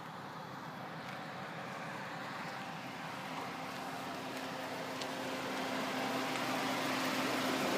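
Car engine running steadily with a constant low hum, growing gradually louder, while its cooling system is burped of trapped air after a coolant leak.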